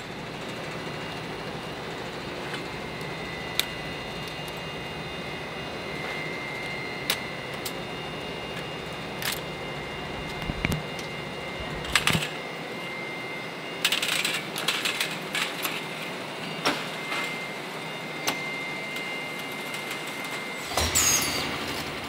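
Factory machinery running with a steady hum and a thin high whine, broken by scattered metallic clicks and clinks of a coiled steel band saw blade being handled on a cut-to-length machine's turntable, with a cluster of louder clanks near the end.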